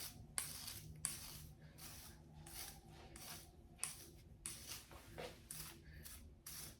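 Hairbrush stroking through long curly hair: faint, regular swishes, about two strokes a second.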